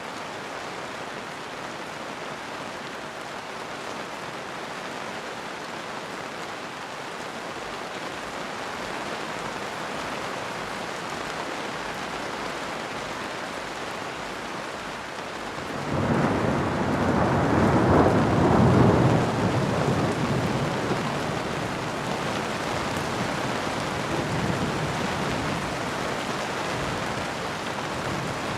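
Steady rainfall, with a roll of thunder breaking in suddenly about halfway through, loudest a few seconds after it starts, then rumbling on more quietly under the rain.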